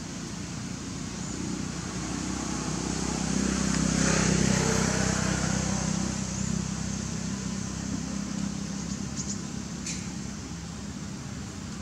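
A motor vehicle's engine passing by, a low hum that grows louder to a peak about four seconds in and then slowly fades.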